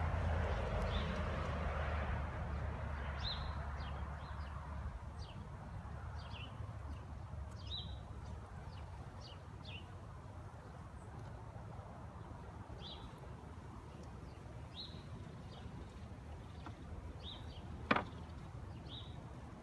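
Birds chirping, short high chirps about once a second, over a low outdoor rumble that fades over the first few seconds. A single sharp knock near the end.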